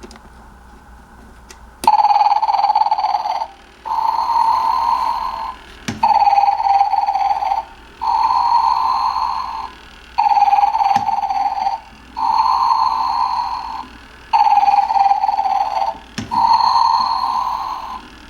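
Animated snoring Santa figure's sound chip playing a recorded snore through its small speaker, starting about two seconds in and repeating about every two seconds, eight snores, each about one and a half seconds long. Sharp clicks fall in some of the gaps.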